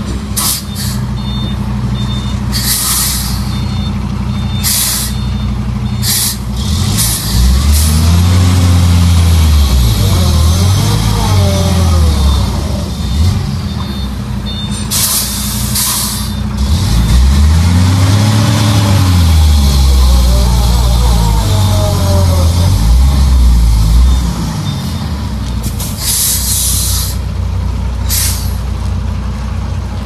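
Heavily loaded SAIC-Iveco Hongyan dump truck's diesel engine labouring under load, twice revving up and falling back. Several sharp hisses of air brake release cut in along the way, and a faint high beeping repeats in the first half.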